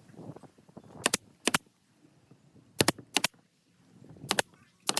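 Sharp clicks in pairs, a pair about every one and a half seconds, over a quiet background.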